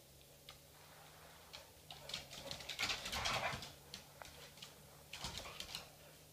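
A black Lab and a springer spaniel play-wrestling on a hardwood floor: claws click and scrabble on the boards, with a low grumbling play vocalisation. The scuffling is thickest about two to four seconds in and flares up again near the end.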